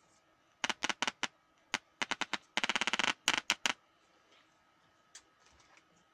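A series of sharp clicks and crackles as the audio input jack plug and input wires of a homemade amplifier are handled. The clicks come in uneven groups, with a rapid run of about a dozen in half a second near the middle.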